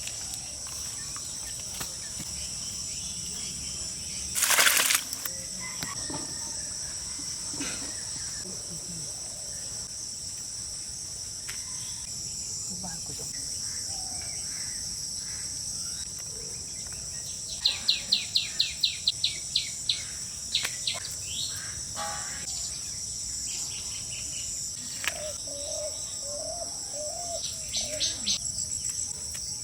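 Steady high-pitched chorus of insects. A short loud rush of noise comes about four seconds in, and a quick run of about ten sharp clicks comes past the middle, with a few more near the end.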